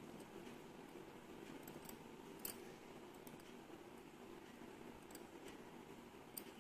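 Near silence: faint steady room tone with a few small clicks, the loudest about two and a half seconds in and another near the end.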